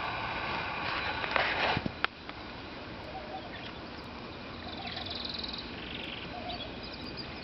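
Canaries and lovebirds chirping, with short, rapid high trills. A brief rustling burst and a sharp click come at about two seconds in.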